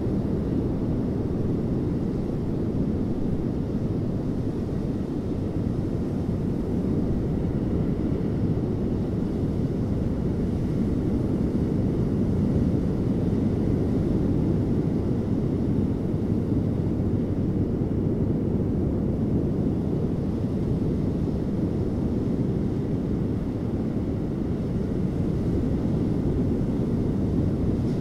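Ocean surf breaking on a sandy beach, heard as a steady low rumble with no separate wave crashes standing out.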